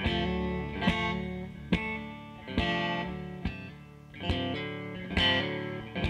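Black Stratocaster-style electric guitar played solo, with chords strummed and a sharp accented strike about every second, each chord ringing on between strikes.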